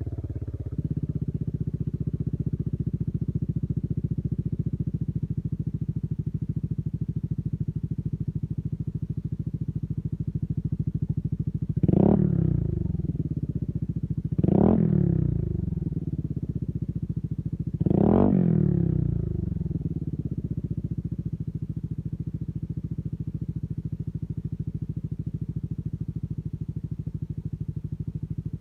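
Yamaha Aerox scooter engine idling through an aftermarket Akrapovic-copy exhaust, with three short throttle blips: about twelve seconds in, two and a half seconds later, and again about three and a half seconds after that. Each blip rises and falls back to idle.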